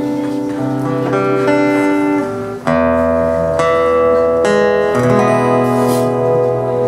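Music: an instrumental introduction led by guitar, with held notes and chord changes about every second, and a fuller bass coming in about three seconds in.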